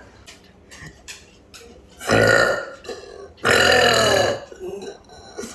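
A person burping loudly twice: one burp about two seconds in, then a second, slightly longer one about a second later.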